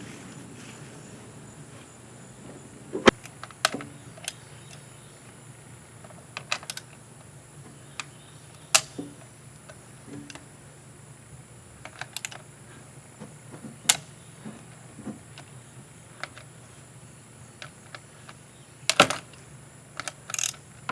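Irregular sharp clicks and knocks of hand tools and parts being handled while covers are unscrewed from an outboard motor, the loudest about three seconds in and a quick cluster near the end.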